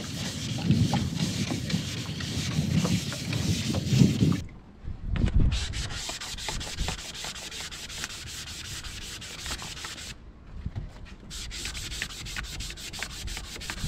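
Hand sanding of the gelcoat on a fiberglass boat transom with sandpaper: quick, even back-and-forth rubbing strokes, with a short pause about ten seconds in.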